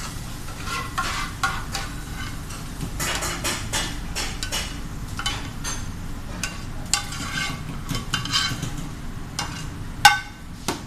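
A utensil stirring and scraping food in a hot pan, with frying sizzle and repeated short scrapes, and one sharp clank about ten seconds in.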